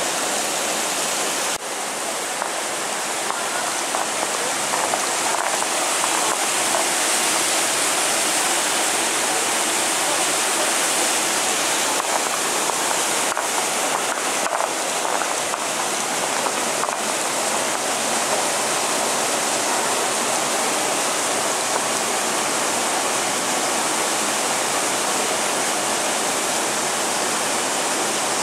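Hot spring water of the Kusatsu Yubatake falls (yutaki) pouring into its pool, a steady rushing splash.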